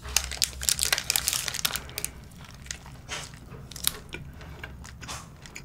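Close-miked biting into and chewing an avocado burger: crisp, crackly mouth sounds, dense through the first two seconds, then a few scattered crunches.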